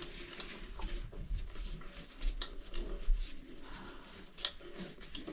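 Scattered light clicks, taps and scrapes of hands and tools working on a toilet's shut-off valve and supply-line fittings.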